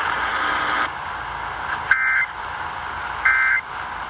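Emergency Alert System end-of-message tones: three short, identical buzzy data bursts, each a warble between two pitches, about a second and a third apart. They play over steady radio hiss and mark the end of a weather alert.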